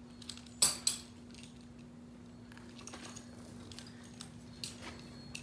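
Two sharp metallic clinks a little under a second in, then scattered lighter clicks and taps, over a faint steady low hum.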